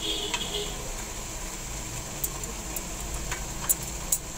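Metal kitchen tongs clicking and tapping against a stainless steel steamer tray and wooden skewers as chicken tikka skewers are turned, a few sharp light clicks scattered over the second half, over a steady low hum.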